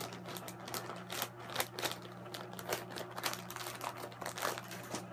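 Plastic soft-bait bag crinkling and crackling as it is handled, with many irregular small clicks and rustles over a steady low hum.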